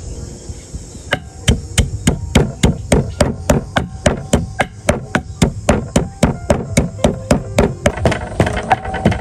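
Wooden pestle pounding salt in a wooden mortar: sharp, even knocks about three a second, starting about a second in.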